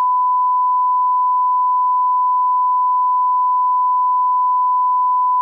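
A steady, loud 1 kHz bleep tone, a single unchanging pitch laid over the audio with everything else muted, the kind of tone used to censor a stretch of sound.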